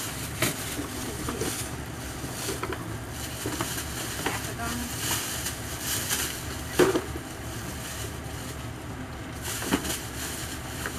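Shopping bags rustling as items are taken out and handled, with scattered light knocks and one sharper knock about seven seconds in.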